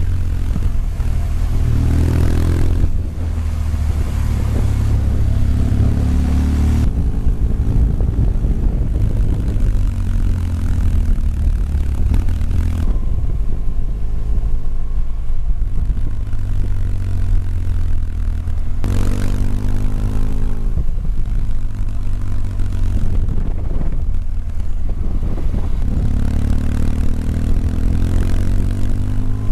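Motorcycle engine heard from the bike's own onboard camera at road speed, its pitch rising and falling with the throttle, over a constant rush of wind noise. The sound shifts abruptly several times where clips are joined.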